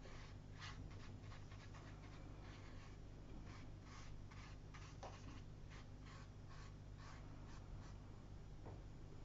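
Faint scratchy strokes of a round watercolour brush brushed across watercolour paper, a quick, irregular run of short strokes over a low steady hum.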